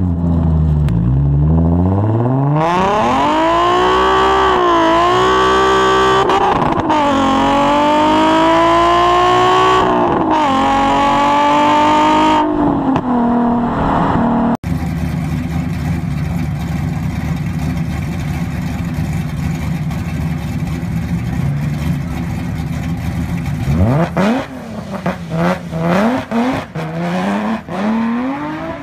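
Nissan 350Z's 3.5-litre VQ V6 through an aftermarket titanium exhaust, heard close at the tailpipe, accelerating hard through the gears. Its pitch climbs in long sweeps and drops at each upshift, about four times. After a cut there is a steadier engine drone, then about 24 s in the engine revs up sharply and wavers as the car launches down a drag strip.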